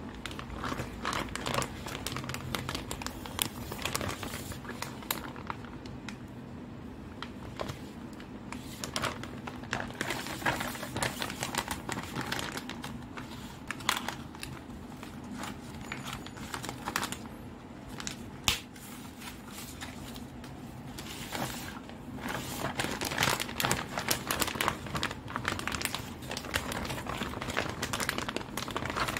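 Clear plastic packaging film crinkling and crackling as hands unwrap and handle a set of toy plastic fruits. The crackles are irregular and close together, thinning out for a while in the middle, over a low steady hum.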